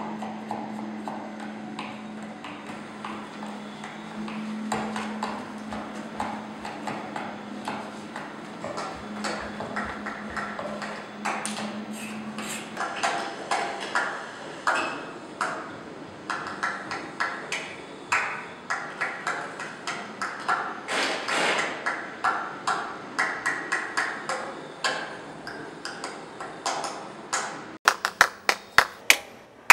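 Irregular sharp taps and knocks, some with a short ringing, over a low hum that stops about twelve seconds in. Near the end, hands clapping in a steady rhythm of about three claps a second.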